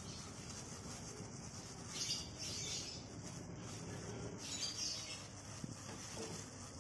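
A plastic-bag glove crinkles and rustles as a hand tosses cassava pieces in flour in a bowl, with soft rubbing of the floury pieces. There are louder rustles about two seconds in and again a little after four seconds.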